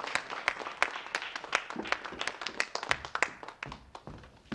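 A small group of people clapping, the applause thinning out and fading away over the last second or so.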